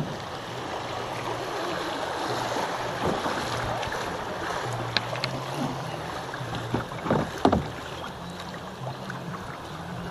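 River water rushing and splashing around a plastic kayak running a shallow riffle, with a few sharp knocks against the hull, the loudest about seven seconds in.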